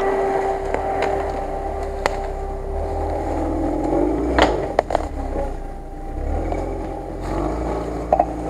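Lada Niva's four-cylinder engine running at low revs as the 4x4 crawls past and away along a rough track, with a low rumble and a steady whine that fades about three seconds in. A few sharp snaps about two seconds and four and a half seconds in.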